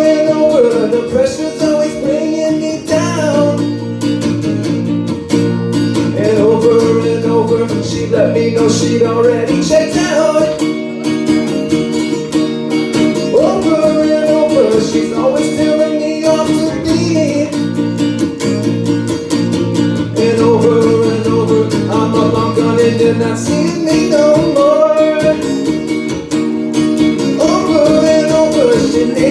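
Acoustic guitar playing chords through an instrumental passage of a song, its low notes dropping out and returning several times.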